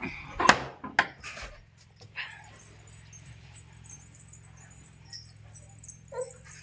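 Keys jangling and the metal latch and bolt of a wooden front door clacking sharply twice as the door is unlocked and opened, with a few lighter clicks after.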